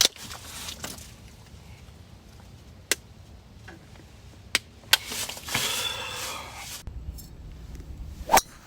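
Beer can being shotgunned: a few sharp metallic clicks as the can is punctured and opened, then nearly two seconds of beer gushing and being gulped down fast. A loud sharp snap near the end.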